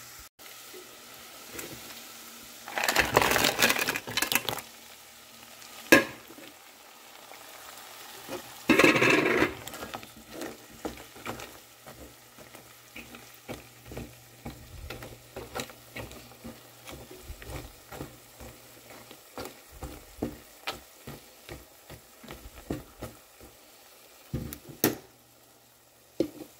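Clams in their shells go into a saucepan of garlic and lemon zest frying in butter and olive oil. There are two loud bursts of sizzling and clattering shells about 3 and 9 seconds in, then many short clicks as tongs turn the clams over the frying hiss, and a metal clank near the end.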